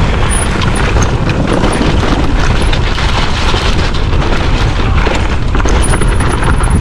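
Mountain bike riding down a rough trail: a loud, steady rush of wind buffeting the microphone and tyre roar, with many small clatters and knocks from the bike over the ground.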